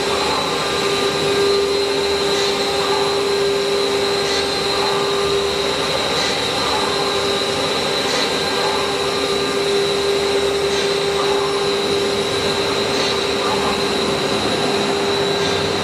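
CNC router spindle running steadily: a constant high whine over an even mechanical hiss.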